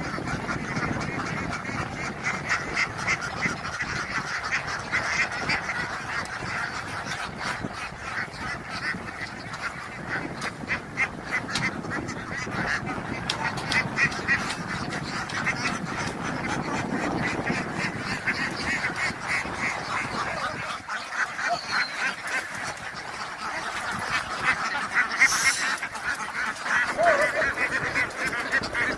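A flock of ducks quacking without pause, many short calls overlapping one another.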